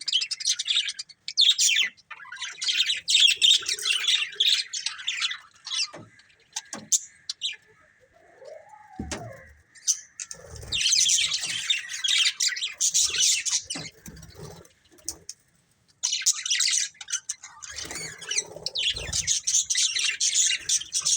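A pair of budgerigars chirping and chattering in rapid, high-pitched bursts, with a quieter lull of a few seconds midway.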